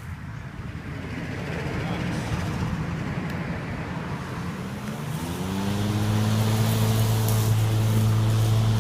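EGO 56V battery lawn mower running: a rough rumble of cutting at first, then about five seconds in its motor's pitch rises and settles into a steady, louder hum.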